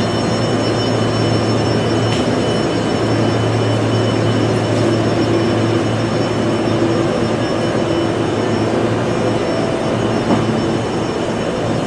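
Steady hum and whine of parked Kintetsu 23000 series Ise-Shima Liner electric trains standing at the platform, their onboard blowers and auxiliary equipment running, with a low hum under several thin high tones.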